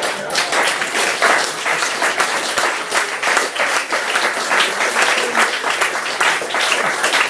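Audience applauding at the end of a reading: many hands clapping steadily, with a few voices mixed in.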